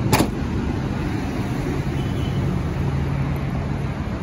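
Steady low drone of a diesel engine idling, most likely the Mazda Bongo's 2.5-litre WL diesel. Just after the start there is one sharp knock.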